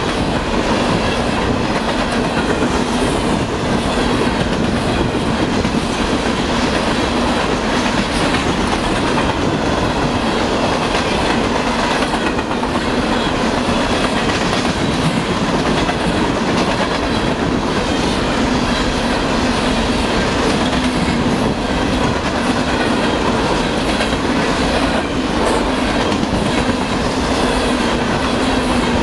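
Refrigerated boxcars of a fast freight train passing close by: a loud, steady rumble and clatter of steel wheels over the rail joints.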